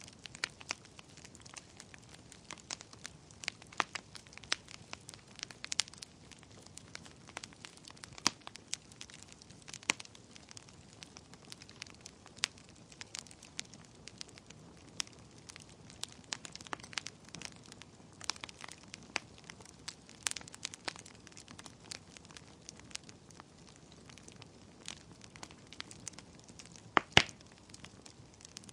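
Wood fire burning in a fireplace, crackling and popping irregularly over a soft hiss, with a few louder pops about 27 seconds in.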